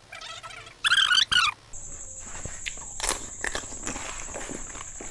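Plastic bottle being handled and tipped: a short run of high squeaks about a second in, then scattered clicks and crinkles of the plastic. A thin, steady high whine starts at about two seconds.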